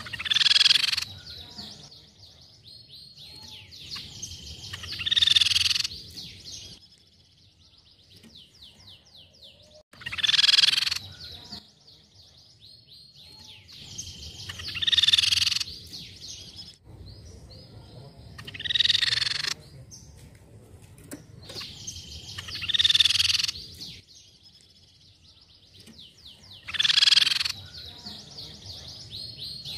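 Crescent-chested babbler (tepus pipi perak) calling: a loud, harsh call about every four seconds, with fast, high rattling trills in between.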